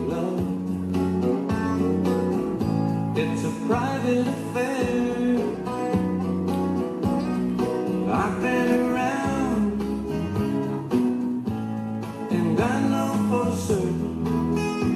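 Country-style song with guitar accompaniment and a steady beat; a singer's phrases come in about four, eight and thirteen seconds in.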